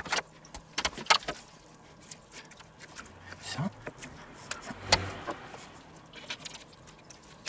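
Scattered metallic clicks and knocks as a rotisserie spit and its holding forks are fitted through a whole chicken over a stainless steel roasting pan. The sharpest click comes right at the start, with others about a second in and about five seconds in.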